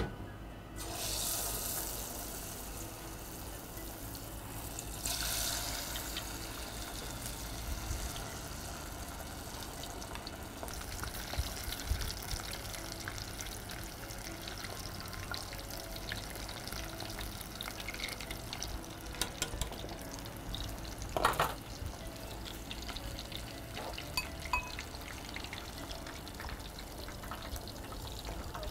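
Pieces of coated fish deep-frying in hot oil in an aluminium pot, a steady sizzling hiss with crackles. The sizzle starts sharply about a second in as the fish goes into the oil and swells again a few seconds later. A brief knock comes about two-thirds of the way through.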